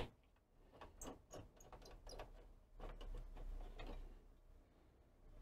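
Faint handling sounds of a sheet-metal plate being lifted out of an electronics chassis: a sharp click at the start, then scattered light ticks and a soft scrape.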